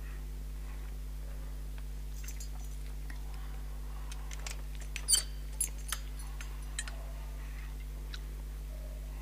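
A few small clicks and clinks from the tabernacle door and the altar vessels being handled, the loudest about five seconds in, over a steady low mains hum.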